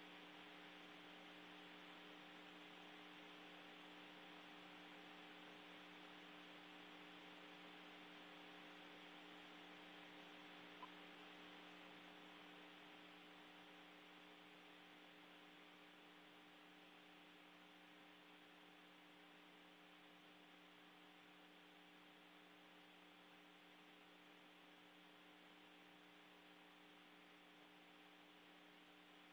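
Near silence: a faint steady hum with a few fixed tones over a soft hiss, with a single faint click about eleven seconds in.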